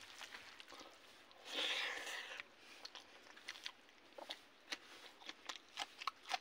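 Close-up eating sounds: a brief hiss about a second and a half in, then chewing a hand-fed mouthful of rice and greens with many short wet mouth clicks.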